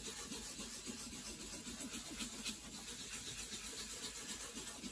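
Soft, steady rubbing of a cloth pad working dye into an acoustic guitar's wooden top, blending the colours of a hand-dyed sunburst.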